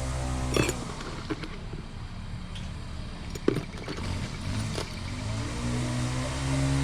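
Gas string trimmer (weed whacker) engine running at a distance: it cuts off under a second in, then revs back up about four seconds in and holds high speed until it begins to drop near the end. A few light clicks and knocks of handling fall in between.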